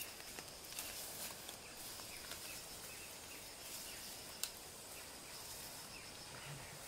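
Faint forest ambience: a thin, steady high-pitched insect drone with scattered soft ticks and chirps, one a little sharper about four and a half seconds in.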